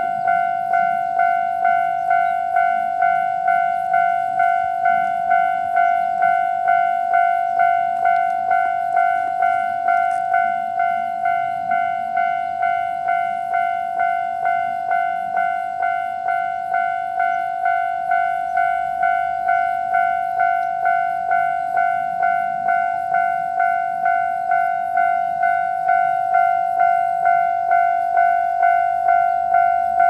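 Japanese railway level-crossing alarm bell ringing in an even, repeating ding-ding at one steady pitch. It is the crossing's warning that a train is approaching.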